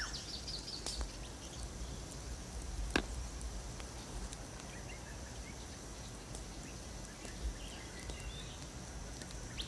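Outdoor nature ambience: a steady high insect drone with a few faint bird chirps, and a sharp click about three seconds in.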